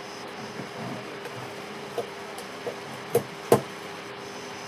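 Four short, sharp knocks, the last two a quarter-second apart and loudest, over a steady background hum.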